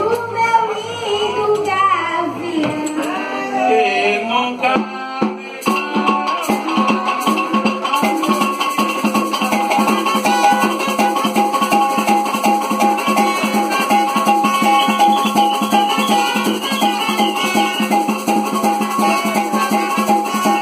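A boy sings a verse into a microphone. About five seconds in, the percussion band comes in with a fast, even shaker-and-drum rhythm over steady held brass tones, and it keeps playing.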